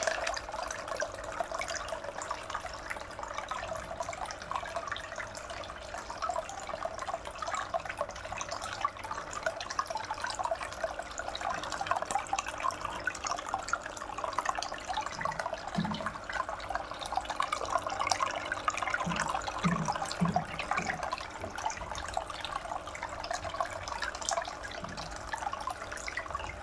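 Water trickling and splashing steadily down a small handmade garden waterfall fountain, with a few brief low plops in the second half.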